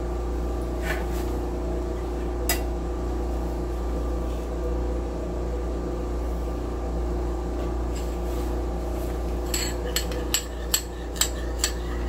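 A steady machine hum runs throughout, with one click about two and a half seconds in. Near the end comes a quick run of sharp clinks: a metal spoon knocking against a small ceramic bowl of melted ghee and butter.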